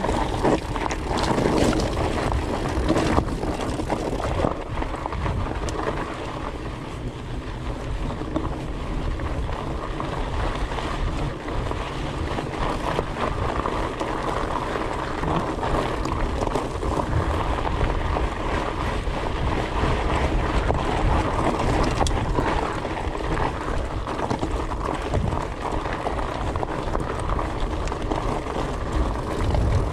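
A fat bike on 26x4.8 Maxxis Colossus tyres rolling over a rocky gravel trail, with wind buffeting the microphone. Knocks and rattles come as the bike goes over stones.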